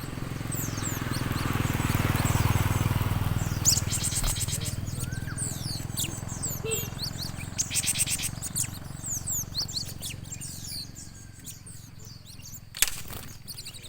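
Gelatik and other small birds chirping with many short, high calls, with a couple of quick rattling trills. A low rumble swells over the first few seconds and fades, and there is a sharp click near the end.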